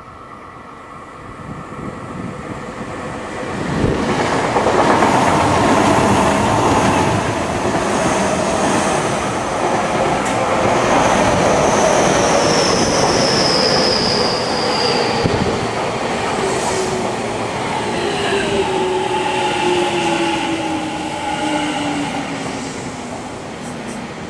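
Two electric commuter trains, a Tokyu 5050 series and a Tokyo Metro 10000 series, running past close on both sides. The noise swells about four seconds in, and the motor whine falls steadily in pitch as a train slows into the station.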